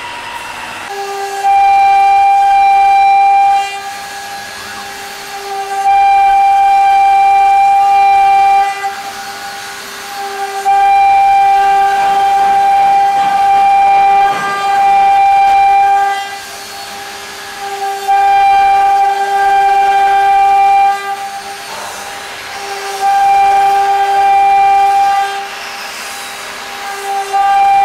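CNC router spindle whining at a steady high pitch as its bit carves curved grooves into a wooden board. The whine swells louder for two to three seconds at a time, every few seconds, and drops back in between.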